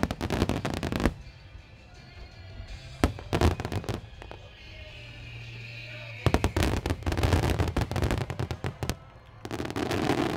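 Starmine fireworks barrage going off in dense volleys of rapid crackling bangs, in clusters with a quieter lull in between, with music playing underneath.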